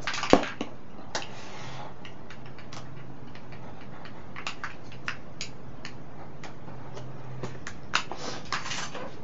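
A cardboard laptop box being cut open at its top edge and handled: scattered sharp clicks and taps, one loud snap right at the start, a short rustle about a second in and a quicker run of clicks near the end. A low steady hum runs underneath.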